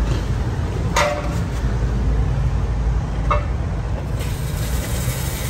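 A machine running with a steady low rumble, with two short sharp knocks, about a second in and just over three seconds in.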